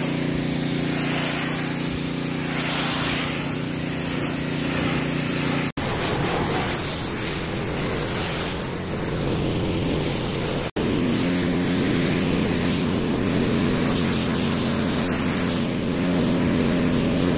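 Husqvarna PW3200 gas pressure washer running steadily, its engine hum under the hiss of the wand spraying water on a fiberglass boat hull and trailer. The sound cuts off abruptly twice and resumes.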